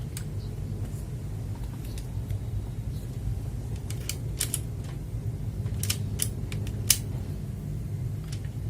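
A few scattered sharp clicks from the blue switches of an HP GK400Y mechanical keyboard, the loudest about seven seconds in, over a steady low hum.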